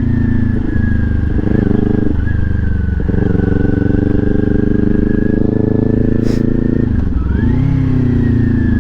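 Kawasaki Ninja 400's parallel-twin engine on its stock exhaust, running under way. The engine note dips briefly a few times in the first three seconds, then drops and climbs again about seven seconds in as the throttle is closed and reopened.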